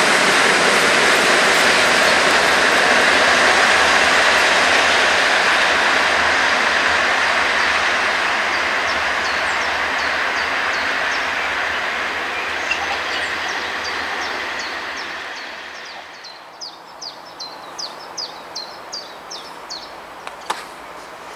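A 201Eo (ET22-type) electric locomotive running light on its own, its wheels and running gear on the rails, fading steadily as it moves away. Once it has faded, a quick series of short high chirps repeats about two or three times a second, with one sharp click near the end.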